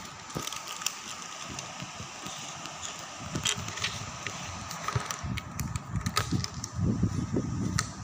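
Hard plastic clicks and snaps of Rubik's cube pieces being pressed into place and the cube's layers being turned, scattered irregularly, with a low rumble building up in the second half.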